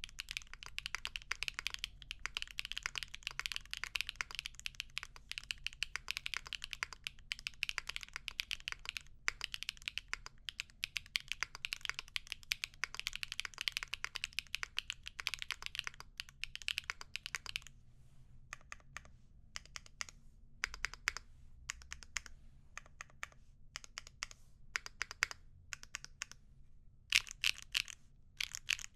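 Mechanical keyboard with HMX × Evoworks Amber linear switches in an aluminum plate being typed on: fast, continuous keystrokes for about the first two-thirds, then slower, scattered key presses with short pauses and a final quick run of keys.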